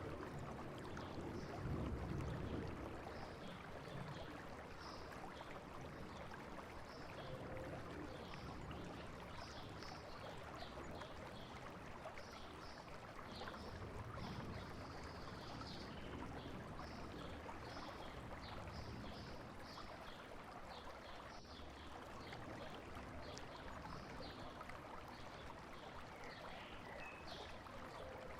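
Flowing river or stream water, a steady gentle rush, with many short high chirps scattered throughout and a brief low rumble about two seconds in.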